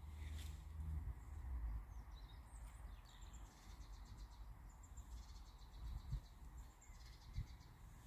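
Songbirds singing in the background, a few chirps and then several phrases of rapid high trills, over a low outdoor rumble with a few soft bumps.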